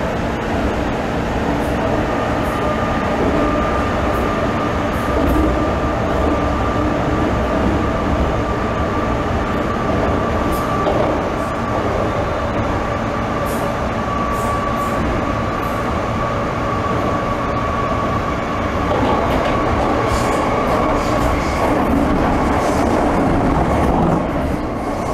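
MTR Tseung Kwan O line M-train heard from inside the carriage, running at speed through the tunnel under the harbour between Quarry Bay and Yau Tong. It makes a steady rumble with a high whine held from about two seconds in, and light clicks in the second half.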